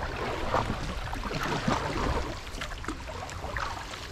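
Kayak paddle strokes: the blade dipping and splashing in the water, with water dripping off it in irregular small splashes.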